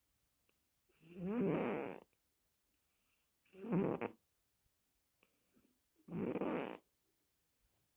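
A sleeping pet snoring: three snores, the first a little longer, about two and a half seconds apart, with quiet breaths between.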